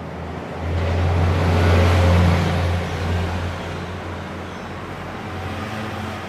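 A road vehicle passing, its low engine hum and road noise swelling about a second in and easing off after the third second.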